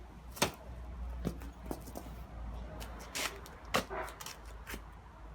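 Sharp metallic clicks and knocks, about six spread over a few seconds, as the jaws of a pair of 30-inch bolt cutters bite at a hardened steel D-lock shackle and slip off it.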